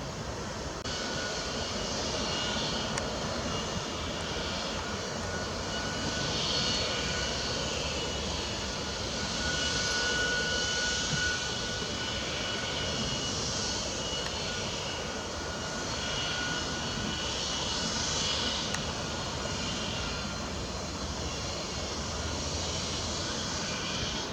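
Steady droning engine noise with a faint steady whine in it, swelling and easing slightly in loudness.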